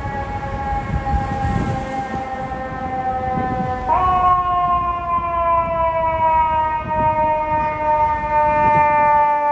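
FDNY fire engine's mechanical siren wailing, its pitch sagging slowly as it winds down, then spun back up with a sudden jump in pitch about four seconds in and sagging again. Low city-traffic rumble underneath.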